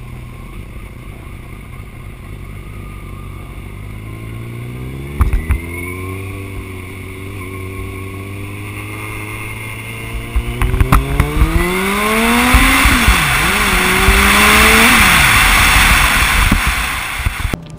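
Suzuki motorcycle engine idling, then pulling away and accelerating through the gears, its pitch climbing and dropping back at each shift. Wind rushes over the helmet camera's microphone as speed builds, and there are a few sharp knocks.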